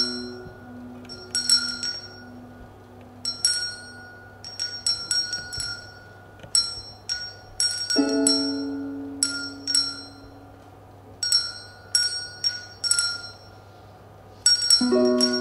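Small handbells rung by several players in sparse, irregular strokes, each a short, bright ring, over a faint steady high tone. A lower, longer-ringing tone sounds three times: at the start, about eight seconds in, and near the end.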